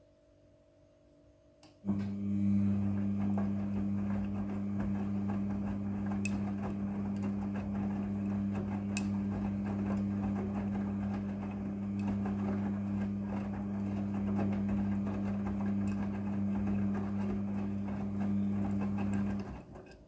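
Midea front-loading washing machine's drum turning in the wash cycle: the motor starts suddenly about two seconds in with a steady hum while the laundry tumbles, then stops shortly before the end.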